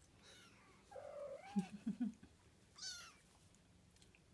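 Kitten meowing several times in short, high-pitched calls.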